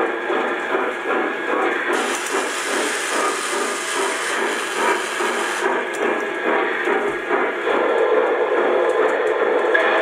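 Lionel #38 operating water tower running, water moving through its tank and pump. There is a steady hiss from about two seconds in until nearly six seconds in, while the tank drains.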